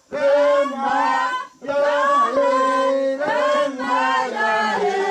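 Several voices singing a Uitoto ritual chant together, in short phrases broken by brief pauses for breath.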